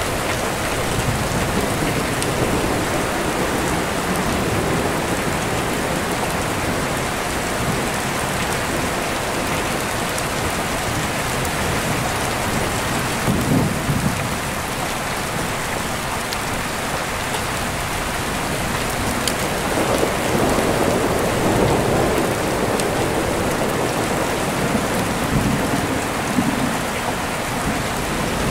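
Steady rain falling, with deep rolling thunder that swells up low several times, most strongly around the middle and near the end.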